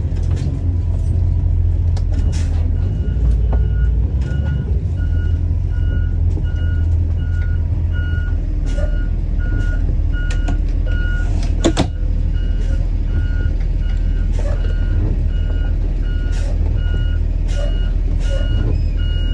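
2021 Blue Bird All American school bus backing up: its engine runs with a steady low rumble while the backup alarm beeps, about two beeps a second, starting a few seconds in. A single sharp clank sounds near the middle.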